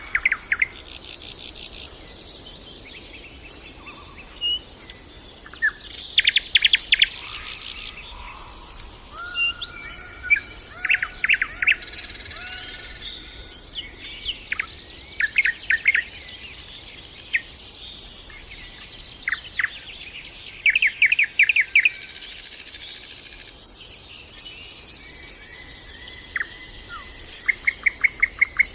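Nightingale singing in varied phrases: fast series of repeated clicking notes, high trills and clear whistled notes, each phrase a second or two long with short pauses between.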